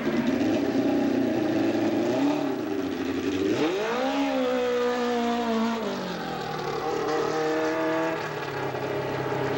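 Open-wheel single-seater racing car's engine accelerating. Its pitch climbs sharply about three and a half seconds in, holds, then drops back around six seconds and again near eight.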